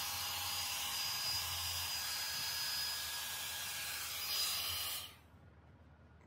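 Hot air styler (Dyson Airwrap dupe) with a round brush attachment, its fan running with a steady rush of air and a faint high whine. It cuts off about five seconds in.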